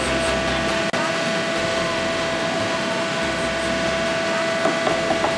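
Steady machine hum with a constant tone, like a kitchen fan or appliance running, with a few faint clicks near the end.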